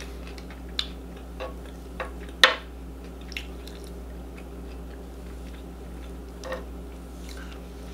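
A fork and fingers clicking and tapping against a serving tray of food as pieces are picked up: a few scattered light clicks, the loudest about two and a half seconds in, over a steady low hum.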